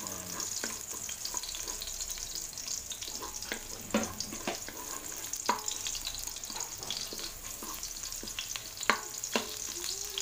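Garlic and red onion sizzling in hot oil in a metal wok, stirred with a wooden spatula that scrapes and knocks against the pan at irregular moments, the sharpest knocks about four seconds in and near nine seconds.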